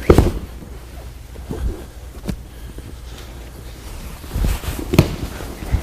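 Bodies thudding onto a training mat as a partner is taken down and pinned, with gi fabric rustling and knees shuffling between. One loud thud comes right at the start, a few softer knocks follow, and another sharp thud comes near the end.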